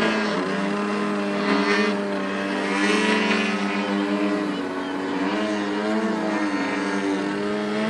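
Engine of a 50cc gas-powered Edge aerobatic RC plane in flight. The engine note rises and falls repeatedly as the throttle is worked.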